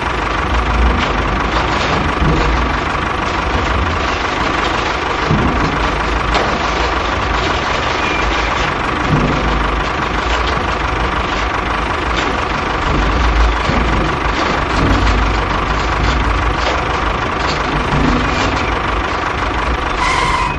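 Small electric motor of a homemade mini machine running steadily, with a constant high whine over a dense mechanical whir.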